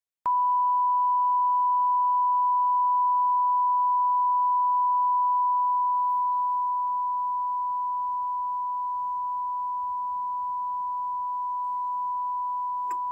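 A repaired 16-ohm loudspeaker playing a steady, pure sine-wave test tone to check its mended voice coil, with a click just before the end.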